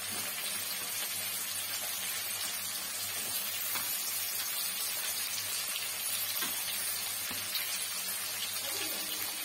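Onion and green capsicum sizzling in hot oil in a steel kadai, a steady frying hiss with a few light scrapes and taps of a steel spatula as they are stirred.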